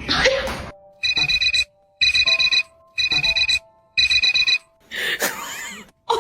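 An electronic alarm ringing in four bursts about a second apart, each a rapid high trilling beep, over background music.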